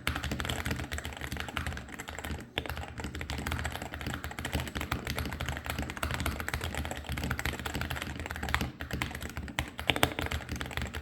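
Modded Wooting 60HE keyboard with Hall-effect magnetic switches being typed on fast and continuously: a dense run of keystroke clacks, with a short lull a little over two seconds in.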